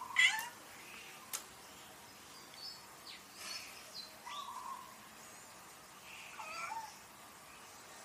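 Domestic cat giving one loud, short meow right at the start.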